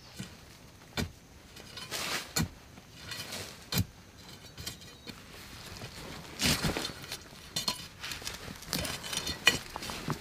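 A metal digging blade chopping into hard, dry, clumpy soil: three sharp strikes about a second and a half apart, then scraping and loose earth crumbling as it is dug and pulled aside.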